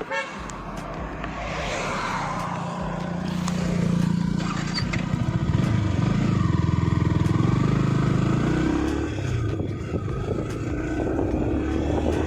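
Yamaha R15 V3's single-cylinder engine running while being ridden, its pitch shifting as the revs rise and settle, over a rush of road and wind noise.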